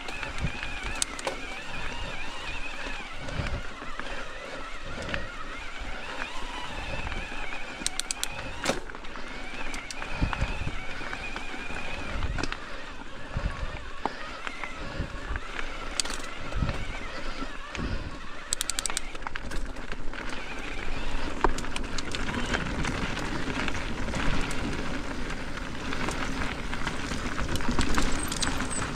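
Mountain bike being ridden on a dirt trail: a steady rush of tyre and trail noise with frequent bumps and rattles, and a few sharp clicks about eight and nineteen seconds in.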